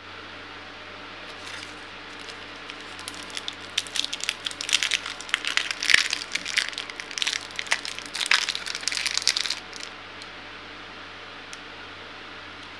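The plastic and foil wrapper of a Cadbury Dairy Milk bar crinkling and crackling as it is torn open and peeled back by hand. It goes for about eight seconds, loudest in the middle, then stops, over a low steady hum.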